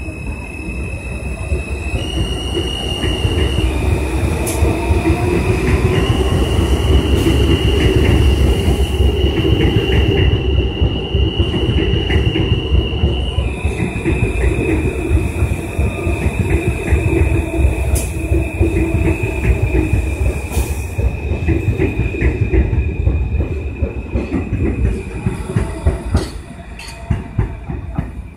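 Kawasaki R160B subway train accelerating away from a station. A high whine holds a few steady pitches that jump up and down in steps, and a lower tone climbs over the first few seconds, over the rumble and clicking of wheels on the rails. The sound dies down near the end as the last car leaves.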